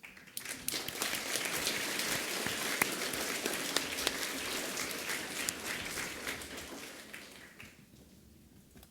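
An audience applauding: a dense patter of many hands clapping that starts suddenly, holds steady, and dies away over the last couple of seconds.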